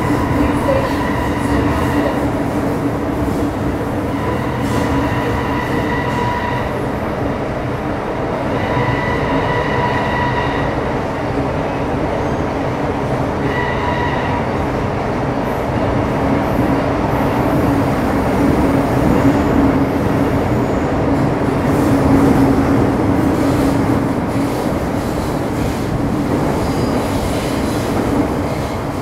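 Interior running sound of an MTR Metro Cammell M-Train EMU (CT-Stock, GEC GTO chopper) travelling between stations in the tunnel: a steady rumble of wheels and traction with a low hum. A high whine comes and goes four times in the first fifteen seconds, on a stretch the uploader marks as carrying an abnormal noise.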